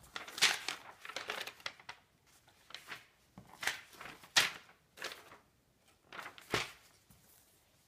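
Sheets of printed paper rustling as they are handled and waved, in about half a dozen short crinkly rustles with quiet gaps between them.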